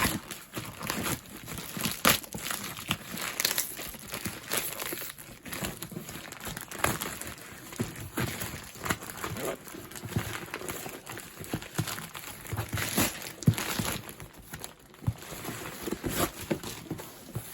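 Plastic packaging being crinkled, torn and handled while a parcel is opened: irregular crackling, rustling and scrunching throughout.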